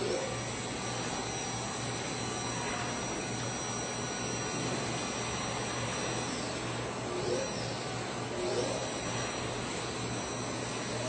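CNC machining center running, with coolant spray hissing over a steady low machine hum and a high whine. The whine stops about six seconds in and comes back about two seconds later, with a few short rising chirps.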